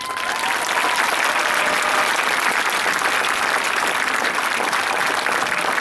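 Crowd in the stadium stands applauding, with a whistle that rises and then holds for about a second at the start.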